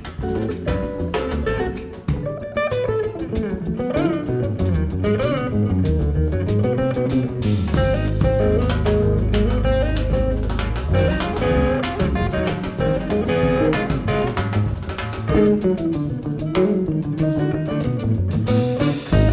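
Instrumental jazz played by a band, with a guitar carrying bending melodic lines over a steady bass and drums.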